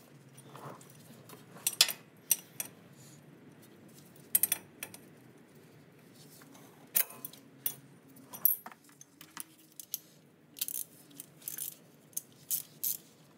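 Scattered metallic clinks and taps of hand tools being handled, a dozen or so short sharp knocks at irregular moments.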